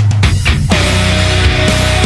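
Loud heavy rock music: drum strokes give way just after the start to distorted guitars, with a long held note that bends down and sustains from under a second in.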